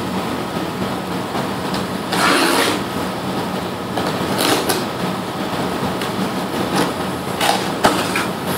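Shipping box and sealed metal spam can of surplus 7.62x54R ammunition being opened: scraping and rustling with a few sharp metallic clicks, over a steady hum.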